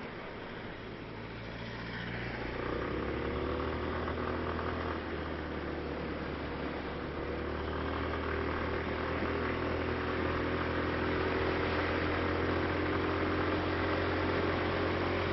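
Motorcycle engine running as the bike rides along a road, over a steady rush of wind and road noise; the engine note grows louder and more even a couple of seconds in.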